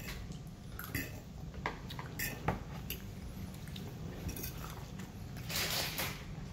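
Metal fork clicking and scraping against a plate while scooping up rice: several short separate clicks, then a longer scraping noise near the end.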